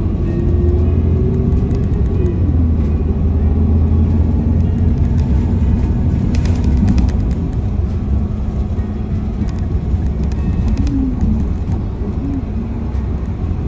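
Kyoto Bus city bus heard from inside the cabin: a steady low engine and road rumble, with a drivetrain whine that rises in pitch and then falls away about two seconds in as the bus changes speed.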